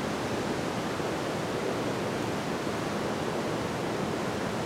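Steady, even background hiss with no events in it.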